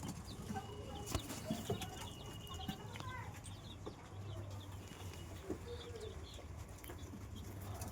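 Rhode Island Red chickens and chicks calling: many short high peeps scattered throughout, with a few lower clucks, over a steady low hum.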